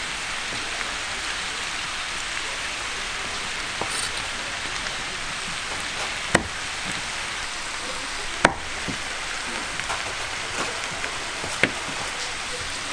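A large kitchen knife chopping pork offal on a thick wooden cutting board, a few sharp knocks with three louder ones in the second half, over a steady hiss of pork offal sizzling on a large steel griddle.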